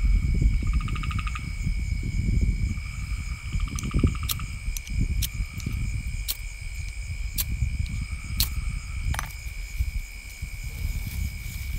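Crickets and other night insects calling: a steady high ringing, with short rapid trills that come and go. Underneath is a low rumble on the microphone, and through the middle there is a run of sharp clicks about once a second.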